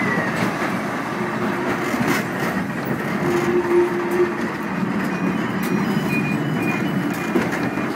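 Volk's Electric Railway car running along its track: a steady rumble of wheels on rail with a few light clicks, and a short steady tone about three seconds in.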